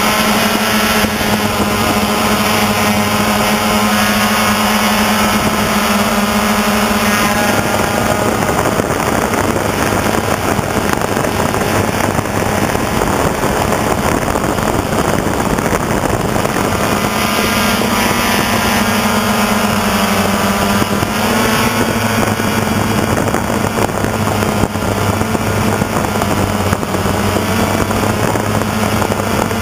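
DJI Phantom quadcopter's motors and propellers buzzing steadily, picked up by the camera on the drone itself. From about 8 to 17 seconds in the steady hum gives way to a rougher rushing noise, then the hum returns with its pitch wavering.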